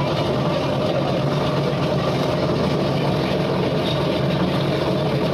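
A motor running steadily: a continuous, even drone with no breaks or changes.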